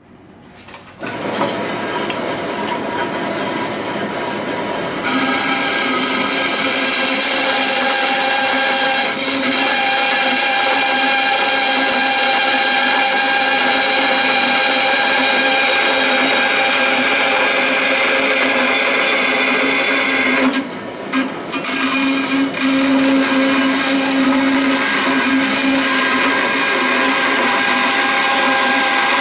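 A high-speed electric hand tool running steadily, with a steady whine, starting about a second in and growing louder about five seconds in, with a brief dip about twenty seconds in.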